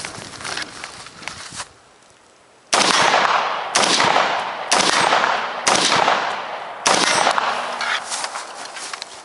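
Light rustling and clicks, then an AR-15 rifle firing five shots about a second apart, each followed by a long trailing echo.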